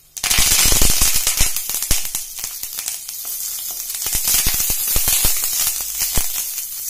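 Fresh curry leaves spluttering and crackling in a little hot oil in a kadhai. A dense sizzle with rapid sharp pops starts suddenly as the leaves go in, and is loudest in the first second or so.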